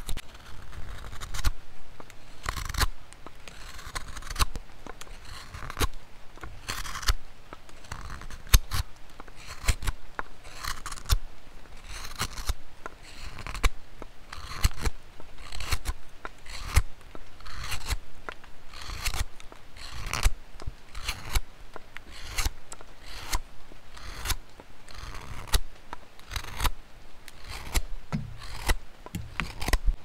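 Hook knife carving out the hollow of a wooden bowl: short slicing and scraping strokes of the steel blade shaving wood, repeated irregularly about one to two times a second.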